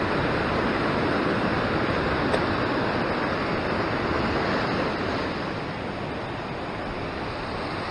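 Ocean surf washing and foaming over the rocks just below, a steady rush of white water that eases slightly about five seconds in.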